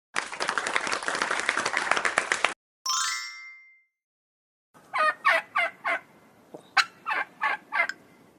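A turkey gobbling, a dense rattling call lasting about two and a half seconds, played as the quiz sound. A short chime follows, then a run of short pulsed sounds.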